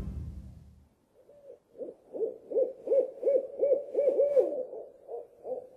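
An owl hooting at night: a long run of short, quick hoots, about four a second, each rising and falling in pitch. Background music fades out in the first second.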